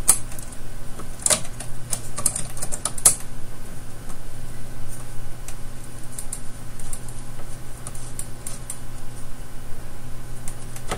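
Screwdriver turning a screw to fasten a circuit board to its mounting post: a series of small irregular clicks and scrapes, busiest in the first few seconds, over a steady low hum.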